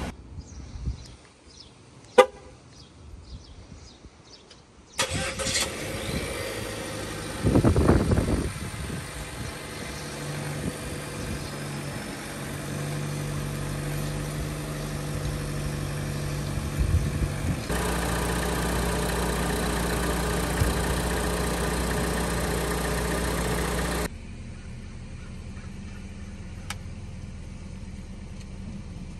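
Chevrolet Cruze 1.4-litre turbo four-cylinder engine running, freshly installed, with a short loud surge about eight seconds in. Its steady running gets louder about eighteen seconds in and drops back sharply about six seconds later.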